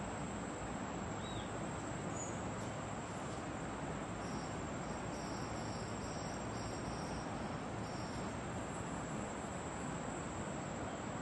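Insects calling: a steady high-pitched drone throughout, with a pulsing high trill from about four to eight seconds in, over a steady outdoor hiss. A couple of brief high chirps come in the first few seconds.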